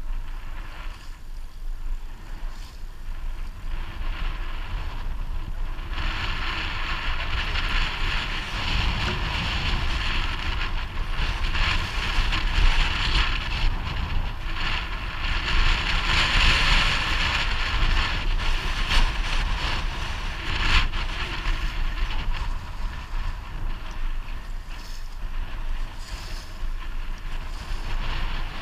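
Fishing boat under way, its motor running steadily with wind buffeting the microphone and water noise. The motor's whine grows louder about six seconds in and stays up.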